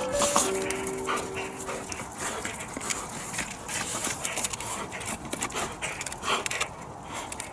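A Newfoundland dog gnawing and crunching on a stick, with heavy breathing. Background music fades out in the first two seconds.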